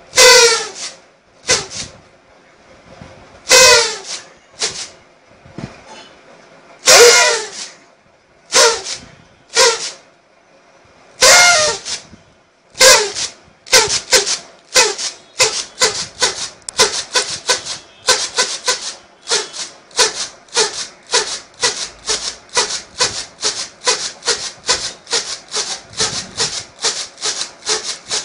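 A light-up toy blown at the mouth: a few long notes that each fall steeply in pitch, then a fast run of short repeated toots about twice a second.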